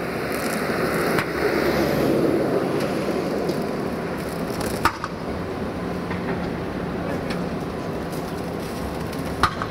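Tram moving slowly, a steady rumble that swells for a couple of seconds, with two sharp metallic clanks, one about halfway through and one near the end.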